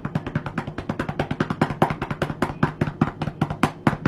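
A hand rapidly patting a cat's rump, a quick, even run of about eight to ten pats a second on its fur.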